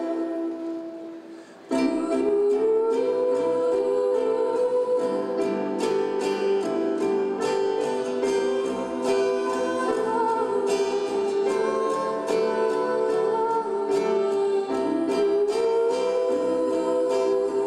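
Live duet of two female voices singing with strummed acoustic guitar. The music dies down over the first second and a half, then guitar and voices come back in fully and carry on steadily.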